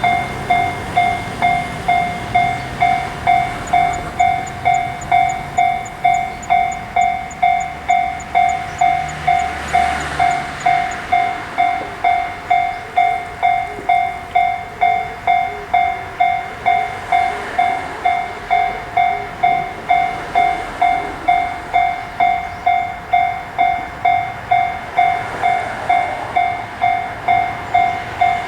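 Japanese level-crossing warning bell ringing its steady 'kan-kan' alarm, a little under two strokes a second. A low rumble sits under it for roughly the first ten seconds.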